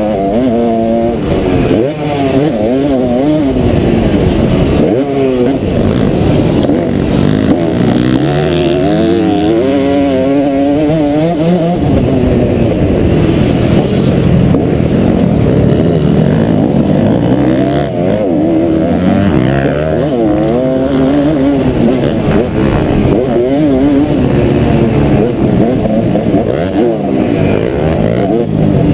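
Motocross bike engine at full race pace, heard close from a helmet camera, its pitch climbing and dropping again and again as the rider opens and closes the throttle and shifts gears.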